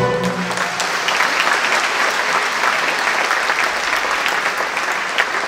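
Audience applauding steadily, a dense clatter of many hands clapping, as the last held note of the choir and ensemble dies away in the first moment.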